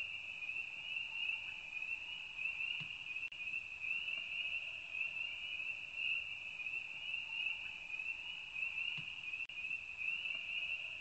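Crickets chirping in a steady, high night chorus.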